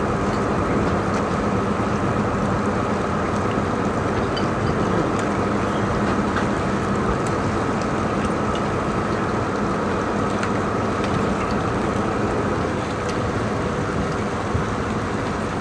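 Steady rushing roar of a fast-flowing river in spate, carrying sheets of ice and debris, with a few faint scattered ticks.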